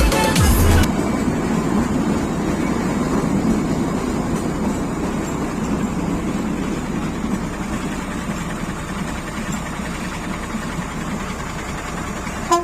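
Steady rumble of the Kalka–Shimla narrow-gauge toy train, slowly growing quieter. Music cuts off about a second in, and a brief sharp sound comes right at the end.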